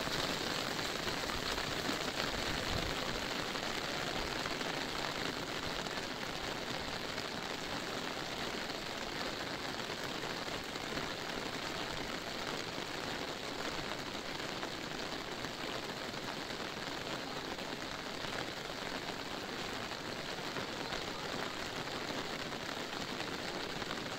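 Steady rain falling on a fabric umbrella held just overhead, heard from underneath it.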